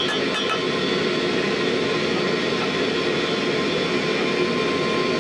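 Propane forge burner running steadily: a constant rush of gas flame and air.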